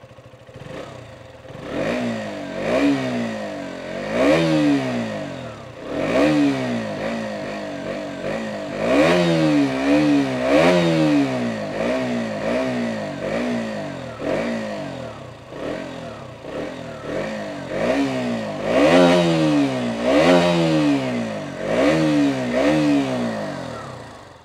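KTM Duke 125's 125cc liquid-cooled single-cylinder engine, heard at the stock exhaust, being blipped repeatedly on the stand: a long run of short revs, each rising and falling in pitch, about one a second, with the engine dropping back toward idle between them.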